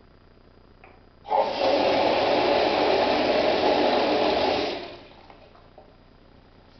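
Alföldi KIWA toilet flushed by a flushometer valve: a sudden loud rush of water that holds steady for about three and a half seconds, then tails off as the valve shuts.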